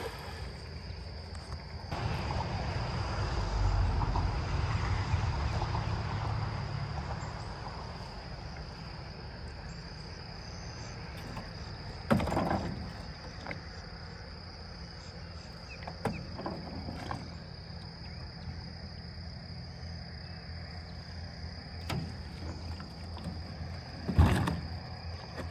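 Insects chirping steadily in an even high tone while a cast net is hauled back in hand over hand, with a few short splashes and knocks, the loudest near the end. A low rumble swells and fades in the first several seconds.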